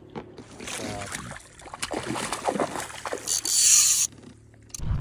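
A big hooked trout splashing at the lake surface beside the boat, the loudest splash about three seconds in. Before it, scraping and clicking from the fly reel being wound in.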